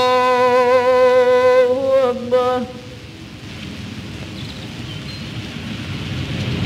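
A man's voice chanting a long, drawn-out note of the Muslim prayer, heard from an old newsreel soundtrack played over a hall's loudspeakers. The chant breaks off a little under three seconds in, leaving a crackly hiss that grows louder toward the end.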